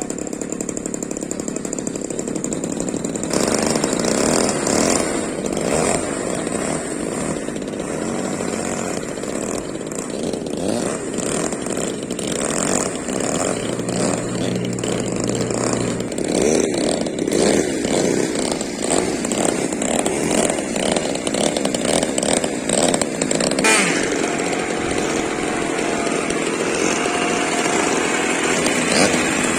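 Engine of a radio-controlled model warbird plane buzzing, rising and falling in pitch as the plane flies, louder from about three seconds in.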